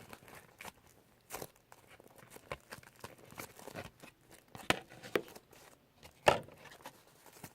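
Hands handling and squeezing a foam squishy toy: scattered rustling and crinkling with a few sharp taps and clicks, the loudest about two thirds of the way in.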